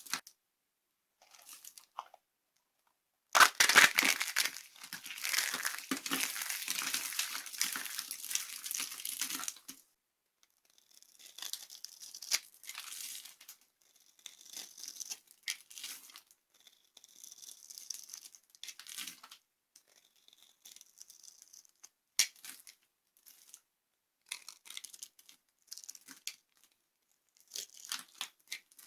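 Dry soap being crushed and crumbled, a dense crunching stretch starting about three seconds in and lasting some six seconds, followed by scattered short crunches and crackles with quiet gaps between.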